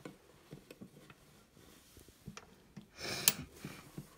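Light handling noises at a sewing machine: scattered soft clicks and knocks, then a brief rustle with a sharp click about three seconds in. The machine is not running.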